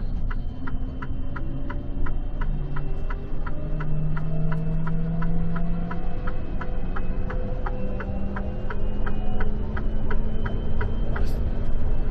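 Mercedes-Benz GenH2 hydrogen fuel cell truck accelerating hard, heard from inside the cab: its electric drive whines in several tones that climb steadily in pitch over a low road rumble. A steady ticking, about four a second, runs throughout.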